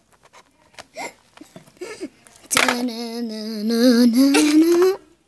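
A child's voice holding one long wavering note for about two and a half seconds, gliding upward in pitch near the end before it cuts off. Before it, a few faint light clicks.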